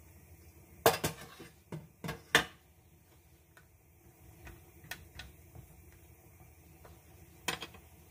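A cooking utensil knocking and clinking against a metal pan while stirring chunky chicken and potatoes: a cluster of sharp knocks about a second in, a few lighter taps through the middle, and one more near the end.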